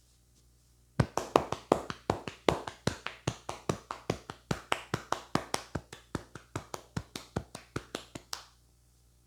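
A barber's hands striking in quick, even slaps, about five a second, in a percussive head massage. The slaps start about a second in and stop suddenly near the end.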